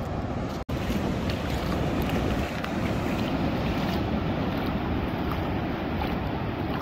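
Wind buffeting the microphone over the steady wash of surf, with a split-second dropout less than a second in.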